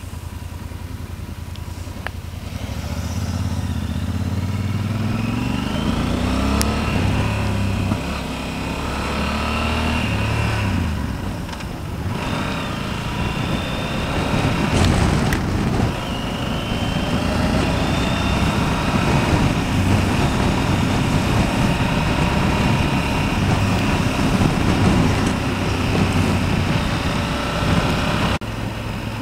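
Yamaha Super Ténéré's parallel-twin engine accelerating through several gear changes in the first ten seconds or so, its note climbing and dropping back at each shift. It then settles into a steady cruise, with wind noise rushing past.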